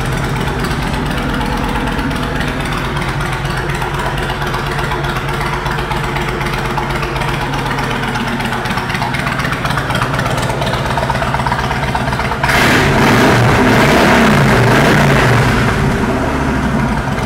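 Kawasaki Mean Streak 1600 V-twin idling steadily through Vance & Hines aftermarket pipes, then revved sharply about twelve seconds in, held for a few seconds and let back down near the end.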